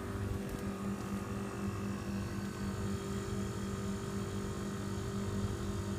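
Profroid Quietis refrigeration condensing unit running: a steady hum from the newly replaced compressor together with the condenser fan.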